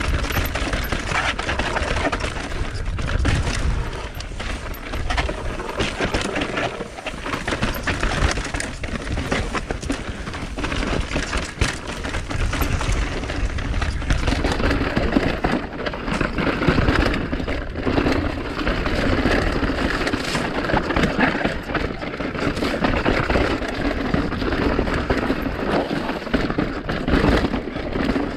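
Mountain bike riding down a dirt trail: tyres running over the ground and the bike rattling and knocking over bumps in a constant rapid clatter.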